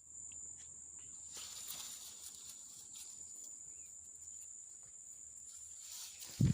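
Insects, likely crickets, keeping up a steady high-pitched chirring. A single dull thump sounds near the end.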